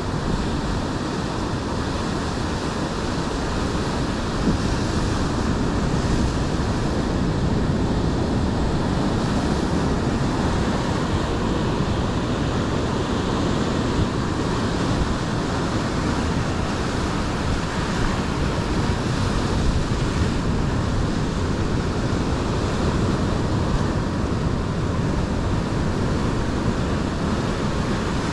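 Ocean surf breaking and washing over a rocky shore: a steady, even rush of waves.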